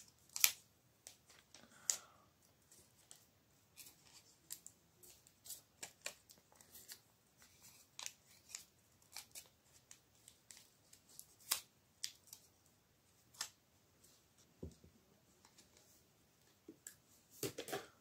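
Paper being handled and wrapped by hand around a small wire coil: faint, irregular crinkles and clicks, with a denser crinkling near the end.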